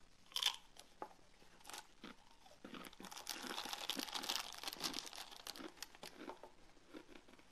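Foil snack pouch crinkling and tearing as it is pulled open by hand, densest around the middle, with scattered sharp crackles before and a few softer crunches near the end.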